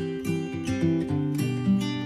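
Background music: acoustic guitar strumming and plucking a light melody.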